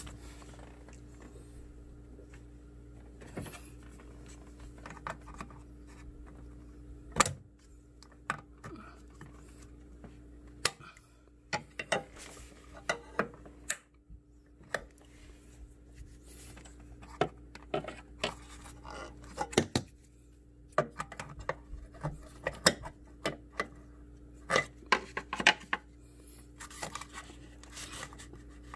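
Irregular clicks, taps and light scrapes as plastic wiring-harness clips are pried and pulled loose in a car's engine bay, with one louder click about seven seconds in. A steady low hum runs underneath.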